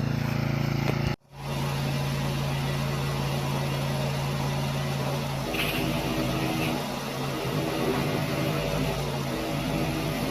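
Engine running at a steady speed, with a brief dropout about a second in and a slight change in its tone about halfway through.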